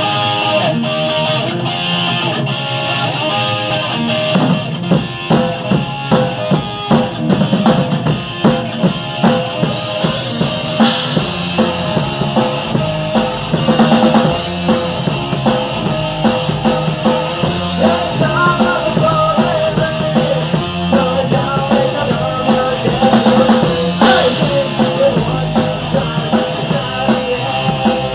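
Rock band playing live: electric guitars, bass and acoustic guitar, with the drum kit coming in about four seconds in and keeping a steady beat.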